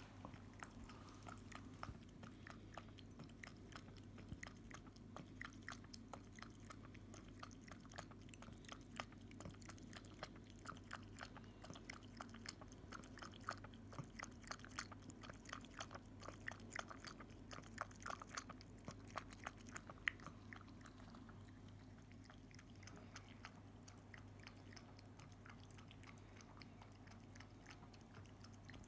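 Somali kitten lapping milk: a quick, faint run of small wet clicks, thickest in the middle and thinning out near the end.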